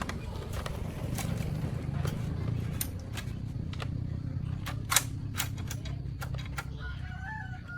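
Scattered sharp clicks and knocks at an uneven pace, the loudest about five seconds in, over a steady low rumble. Near the end there is a brief whistle-like tone.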